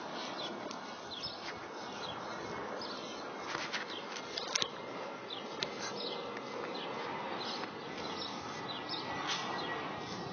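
Birds chirping over and over, many short quick down-sliding chirps scattered throughout, over a steady outdoor background hiss. A few brief clicks or knocks come about three and a half to four and a half seconds in.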